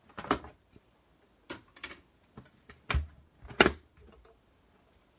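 Crafting tools and paper being moved about on a work table: a string of short knocks and rustles, with a dull thump about three seconds in and the loudest knock just after.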